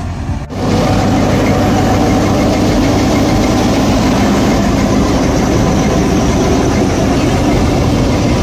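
A tractor-driven wheat straw chopper (reaper) at work makes steady, loud machine noise, with the tractor's diesel engine hum under the whir of the chopper's belts, pulleys and cutting reel chopping stubble into bhusa. It gets suddenly louder about half a second in, and the machine is close from then on.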